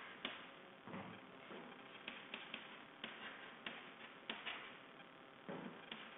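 Chalk tapping and scraping on a chalkboard as words are written by hand: faint, irregular ticks, with longer scratchy strokes about a second in and again near the end.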